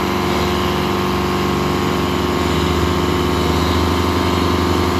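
Two tractors' diesel engines running steadily with their engine notes held even, as they stand chained back to back for a tug-of-war pull.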